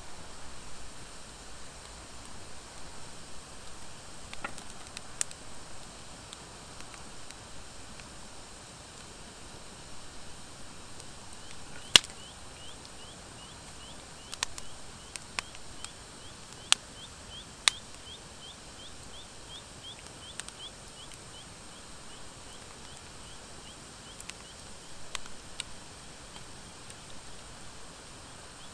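Wood fire of driftwood and dry hardwood burning with a soft steady hiss and occasional sharp crackling pops, the loudest pop a little under halfway through. Through the middle a quick run of faint high chirps repeats several times a second.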